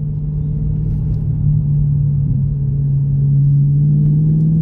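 BMW M3 E9x's 4.0-litre V8 running steadily at low revs with a deep rumble, its pitch starting to climb near the end as it pulls.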